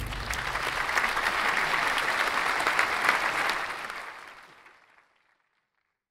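Audience applause, a dense patter of many hands clapping that begins abruptly, holds steady, and fades out about five seconds in.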